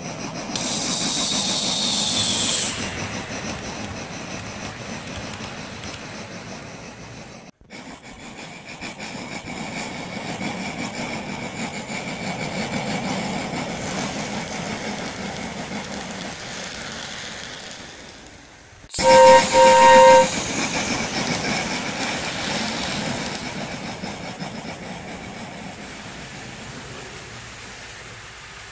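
Tri-ang/Hornby OO-gauge Hall class model locomotive and coaches running along the layout's track with a steady rolling rattle. A loud hiss comes about half a second in and lasts about two seconds, and two short toots sound about two-thirds of the way through.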